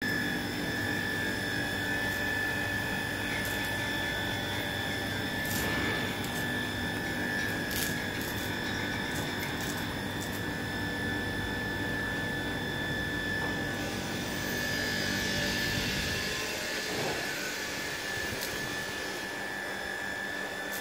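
Touchless automatic car wash machinery running: a steady high electric whine over a low hum, with a hiss of spray in the second half and the low hum thinning out about three-quarters of the way through.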